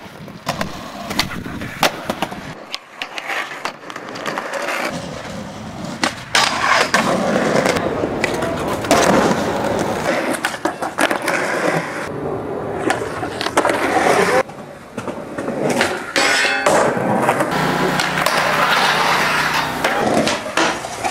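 Skateboard wheels rolling on concrete, with sharp clacks and knocks of the board popping and landing. The sound changes abruptly a few times as short clips cut from one to the next.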